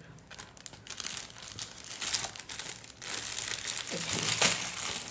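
Plastic crinkling and rustling as the plastic-bag organizers and their wrapping are handled, getting louder about three seconds in.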